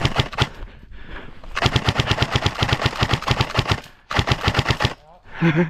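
Airsoft electric gun firing full-auto: a few quick shots at the start, then a long rapid burst of about two and a half seconds and, after a brief pause, a shorter burst. A voice calls out near the end.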